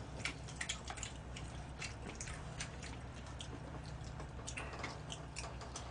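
Scattered small clicks and wet smacks of people eating: chopsticks tapping plastic takeout containers and chewing, over a steady low hum.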